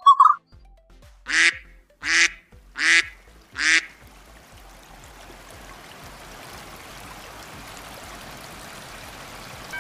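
A duck quacking four times, about three-quarters of a second apart, then a steady hiss that slowly grows louder.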